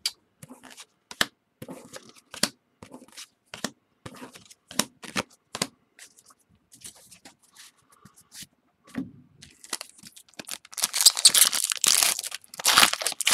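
Trading cards clicking and snapping as they are handled. Near the end, a foil card pack wrapper is torn open with a loud crinkling crackle.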